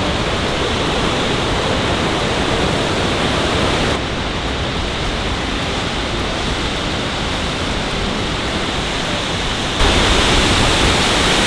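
Waterfall's steady rush of falling water, a loud even noise that changes abruptly twice between shots.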